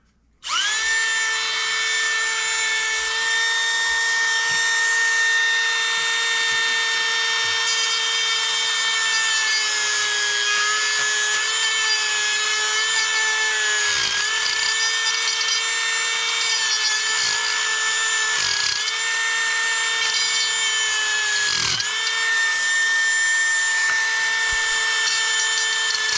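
Small handheld power tool running at high speed with a steady whine, its bit enlarging a hole in a 3D-printed plastic part; the pitch dips briefly twice, partway through and again later, as the bit loads up in the plastic.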